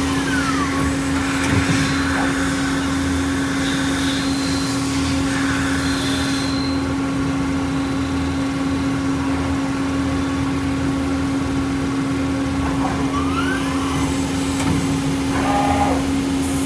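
Okuma LB15 CNC lathe running: a steady machine hum with a hiss that stops about six and a half seconds in. A short whine glides down near the start, and another glides up about thirteen seconds in.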